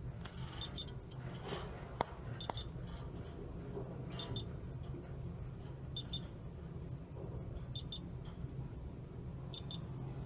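Lift car's electronic beeper giving a short high double beep about every two seconds, six times, over the steady low hum of the car in motion. A sharp click sounds about two seconds in.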